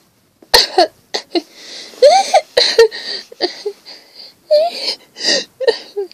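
A child's high voice sobbing and wheezing in short broken bursts with a wavering pitch, acting out a toy pony crying. A few sharp knocks in the first few seconds.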